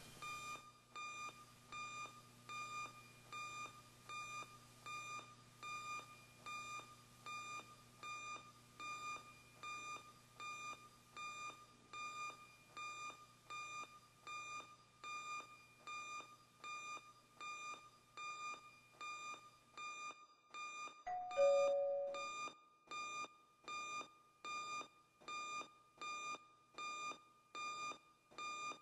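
An electronic alarm beeping steadily, a short high beep a little more than once a second. About two-thirds of the way through, a doorbell rings a two-note ding-dong, the second note lower.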